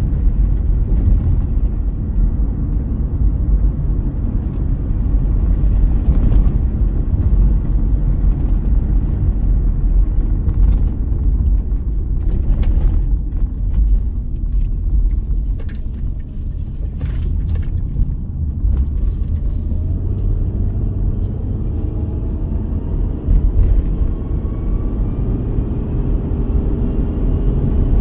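Car driving, heard from inside the cabin: a steady low rumble of road and engine noise. In the last several seconds a whine rises in pitch as the car picks up speed.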